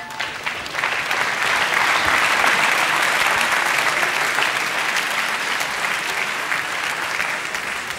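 Arena crowd applauding at the end of a boxing round. The clapping swells over the first second and then slowly fades near the end.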